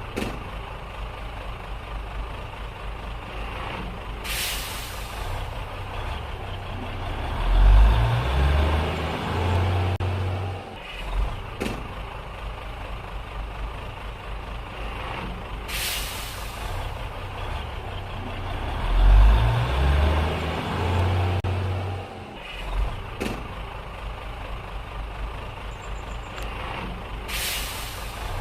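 Truck engine running at idle, revved up twice and held for a few seconds before dropping back. Three short hisses of released air, typical of a truck's air brakes, come about 4, 16 and 27 seconds in.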